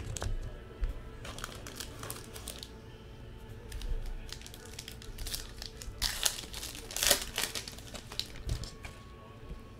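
A trading-card pack wrapper being torn open and crinkled by hand, in crackly bursts: a first run about a second in and a louder run from about six to seven and a half seconds in.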